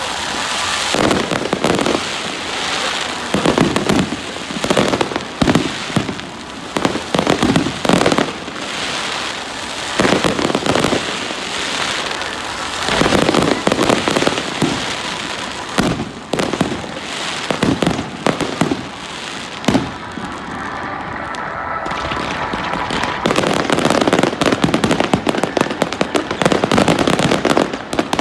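Fireworks display: aerial shells bursting in repeated bangs with crackling between them, the bangs coming thick and fast in the last few seconds.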